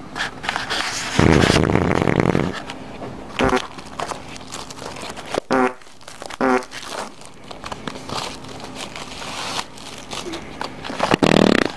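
Fart sound effects: a long, loud buzzy one starting about a second in and another near the end. Between them come scattered clicks and knocks from handling.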